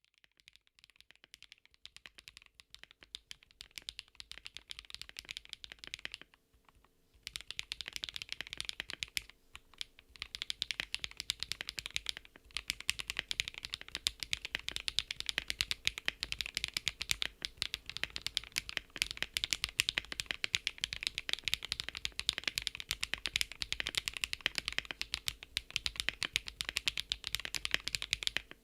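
Continuous typing on a KBDcraft ADAM keyboard with HMX Pearl linear switches, a POM plate and stock PBT keycaps, giving a dense stream of keystrokes. It is lighter at first, stops briefly about six and a half seconds in, then runs steadier and louder.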